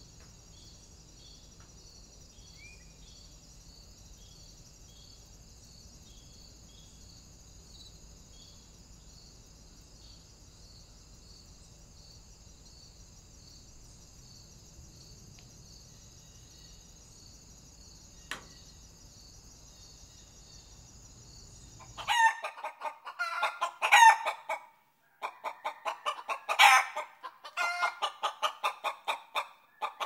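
Faint, steady high-pitched trilling of insects, then from about 22 seconds in a chicken clucking and squawking loudly in a run of short calls.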